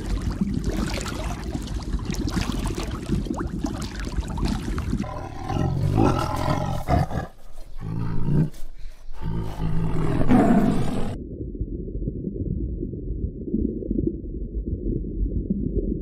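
Tiger growling and roaring: a low rumbling growl throughout, with several louder roars in the middle.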